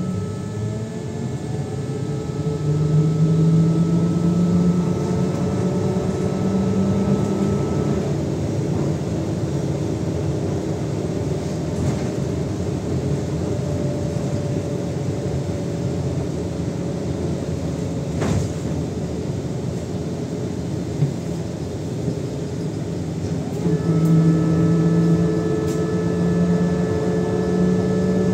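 AKSM 321 trolleybus heard from inside the passenger cabin on the move: steady road rumble, with the electric traction drive humming in several steady tones while it pulls, in the first several seconds and again near the end.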